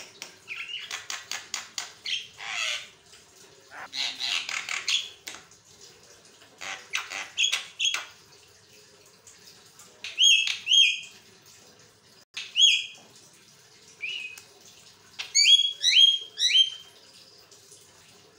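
Javan myna singing without a pause: rapid dry clicking rattles and harsh chatter, broken by loud short whistles that fall in pitch, with several of them in quick succession near the end.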